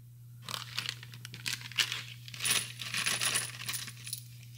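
Small metal parts clinking and rattling together as they are handled, a quick run of light metallic clicks with a thin high ring in the middle, over a steady low hum.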